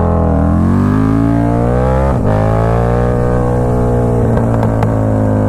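KTM 1290 Super Duke R's V-twin engine, fitted with an Austin Racing exhaust, under hard throttle: the revs climb for about two seconds, the sound breaks briefly, then it holds a steady pitch.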